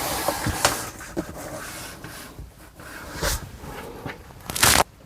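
Boxes and stored belongings being handled and shifted: irregular rustling, light knocks and scraping, with one short, louder scrape near the end.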